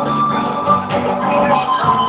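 A band playing instrumental music: a high melody note held in the first half over lower pitched notes, with the notes changing in the second half.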